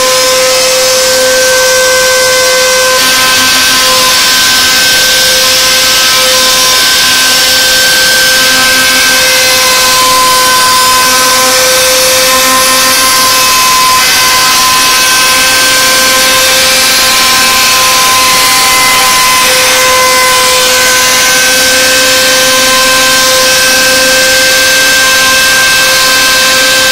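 CNC router spindle running at speed, a steady high-pitched whine over a constant hiss.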